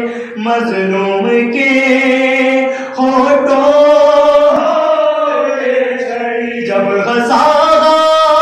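Unaccompanied male voices chanting an Urdu mourning elegy (soz-marsiya style): a lead reciter sings long, slowly shifting held notes, and several men join in.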